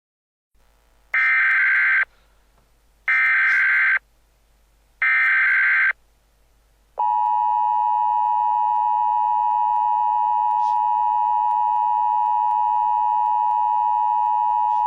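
Emergency Alert System header: three bursts of SAME data tones, each about a second long and a second apart. These are followed by the EAS two-tone attention signal, a steady tone held for about eight seconds that cuts off sharply. The sequence announces an incoming warning message.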